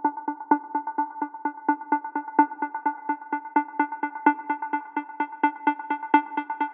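Background music: a synthesizer chord pulsing in a rapid, even rhythm, growing brighter toward the end.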